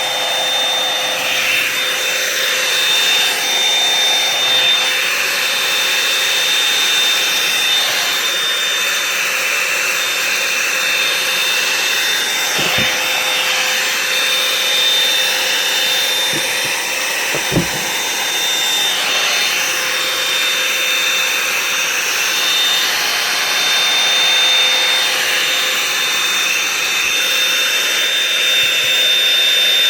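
Revlon One-Step hot-air brush dryer running steadily, its fan blowing with a constant high whine. A couple of brief knocks come near the middle.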